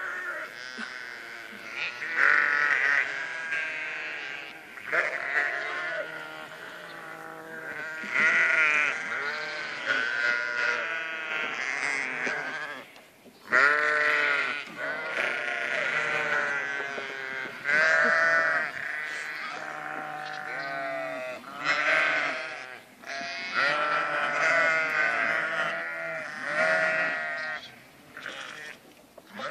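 A flock of sheep and lambs bleating at feeding time, many overlapping calls one after another, the hungry flock crowding to the feed troughs.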